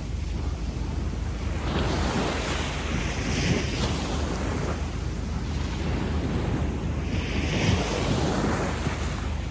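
Small waves washing up a sandy beach and drawing back: one rush of surf about two seconds in and another about seven seconds in, over a steady low rumble.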